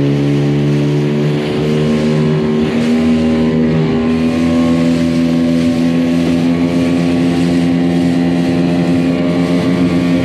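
Outboard motor of an inflatable dinghy running steadily under way, over the rush of water past the hull; its pitch shifts slightly in the first few seconds, then holds.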